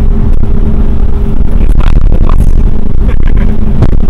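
Cabin noise of a Mercedes-Benz W126 at highway speed: a loud, steady rumble of road and engine, with several brief knocks and rattles through the middle and near the end.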